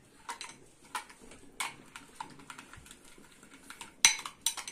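Spoon stirring a thick milky mixture in a glass bowl, knocking against the glass in a few scattered clinks, the loudest near the end.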